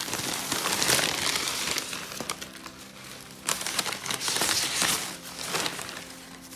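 Newspaper wrapping and shredded-paper packing rustling and crumpling as hands pull it off a plant, in two bouts with a short lull in the middle.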